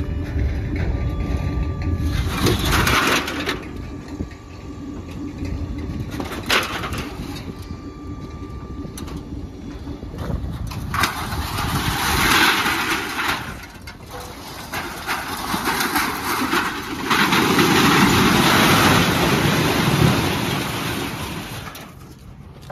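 Heavy landfill machinery running over the trash pile: a steady engine rumble with three long, loud surges of grinding noise as trash is pushed and crushed.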